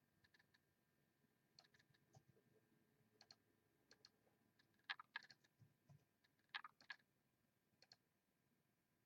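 Faint, scattered clicks of a computer mouse and keyboard, with a denser cluster of clicks about five seconds in and another a second and a half later.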